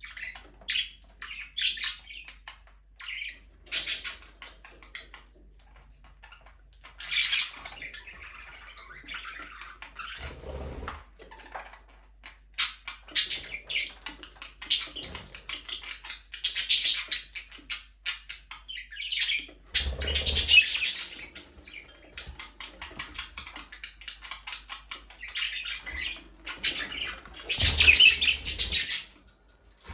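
A flock of budgerigars chattering and chirping, in irregular bursts of rapid high warbling that swell and fade, with a few soft low thumps among them.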